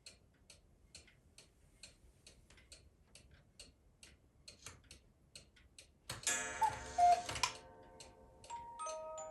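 1970s Anton Schneider mechanical cuckoo clock ticking steadily, about two ticks a second. About six seconds in, the mechanism trips with a sudden loud whirring clatter lasting about a second and a half. Near the end its music box starts playing clear, separate notes.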